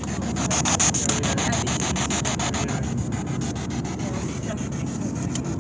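Steady rumble inside a moving car, with a camera rubbing against clothing. A fast, even ticking, about ten a second, runs over it and weakens about halfway through.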